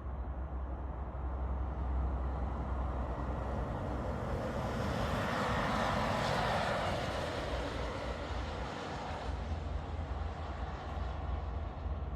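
Jet airliner passing close by, its engine noise swelling to a peak about halfway through and then fading away, over a steady low rumble of wind on the microphone.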